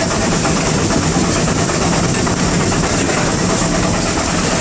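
Steady rumble and rattle on the footplate of steam locomotive 6619, a GWR 5600 class tank engine, as it runs along the line.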